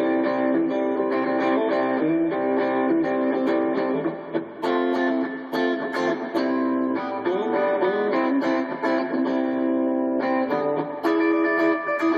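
Hadean EG-462 Stratocaster-style electric guitar on the middle and bridge pickups, played through a Roland Micro-Cube amplifier: chords strummed and left to ring, changing several times.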